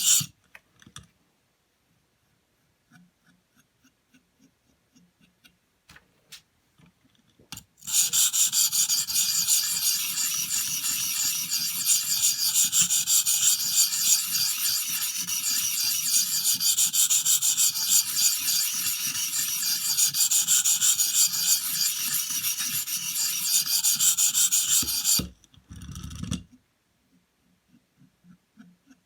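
Steel knife blade scraping along a coarse 400-grit diamond sharpening stone on a guided sharpener, in continuous strokes. It starts about eight seconds in after a few faint ticks and stops a few seconds before the end. The strokes are raising a burr along the edge.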